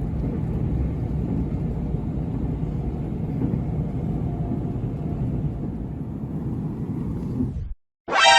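Nankai electric train running, a steady low rumble that cuts off suddenly near the end, followed right away by a short, loud, ringing pitched tone.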